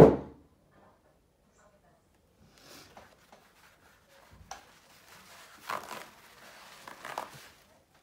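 A hammer smacks down once onto a pool of wet acrylic paint on a flat board, a sharp loud hit with a short ring-out. Quieter knocks and rustling from handling follow in the second half.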